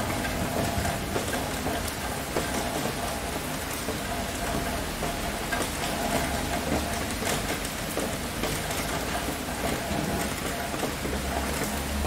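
Heavy rain falling steadily, with scattered sharp drop ticks through it. A low thunder rumble dies away in the first second, and another builds near the end.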